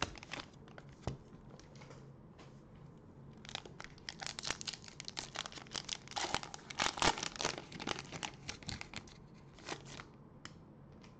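Cellophane wrapper of a trading-card cello pack crinkling and tearing as it is opened by hand: irregular crackles, sparse at first and thickest in the middle stretch, then tapering off near the end.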